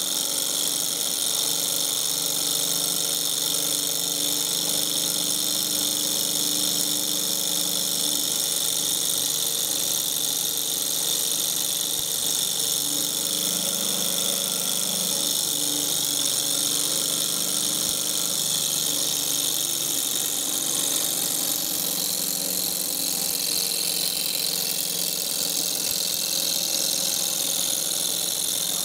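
Small hot-air Stirling engine running at a steady speed on its spirit-lamp flame, its flywheel and piston making a continuous mechanical running noise.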